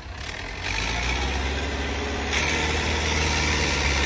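Diesel tractor engines running under heavy load in a tractor pulling contest, growing louder about two-thirds of a second in and again a little past two seconds.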